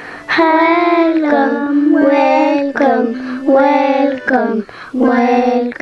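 Young children singing a song of greetings in several languages, in short phrases of long held notes.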